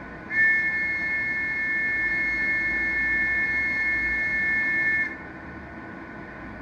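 Station departure warning signal: a steady, high-pitched buzzer tone of two close pitches that sounds for about five seconds and then cuts off suddenly, marking that the train is about to leave. A low steady hum lies underneath.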